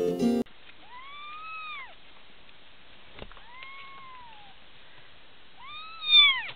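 Young kittens mewing: three drawn-out mews, each rising and then falling in pitch, the last one the loudest. Acoustic guitar music cuts off just before the first mew.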